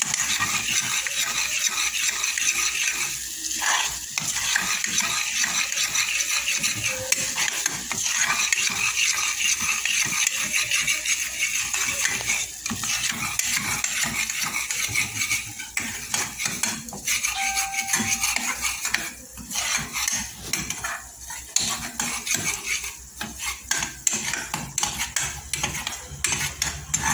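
Wooden spatula stirring and scraping a thick spiced masala paste around an aluminium pot, with rapid scrapes and knocks against the metal over a light sizzle of oil. The paste is being fried down until it turns thick.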